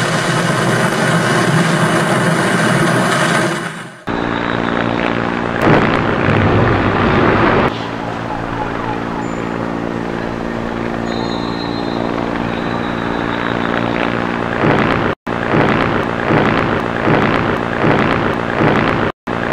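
Loud outdoor street noise in several abruptly cut segments, dominated in the middle by a steady engine drone held at one pitch, like a vehicle or aircraft engine.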